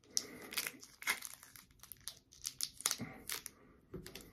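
Clear plastic wrapping crinkling in short, irregular crackles as a small tub of play dough is handled.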